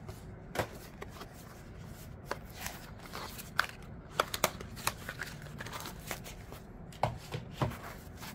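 A black cardboard Kizer knife box being opened by hand: scattered light taps and clicks with soft rustling as the lid and inner packaging are handled.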